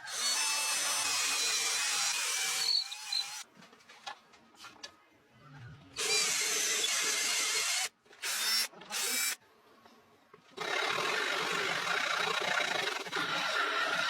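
A power tool working wood, running in four stretches of a few seconds each. Between stretches there are short pauses with scattered knocks.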